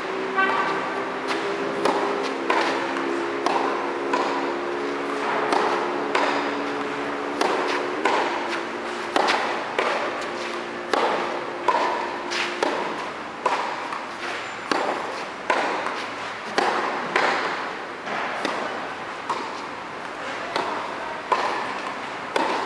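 Tennis rally on an indoor clay court: rackets striking the ball and the ball bouncing, a sharp hit about once a second, each echoing in the hall.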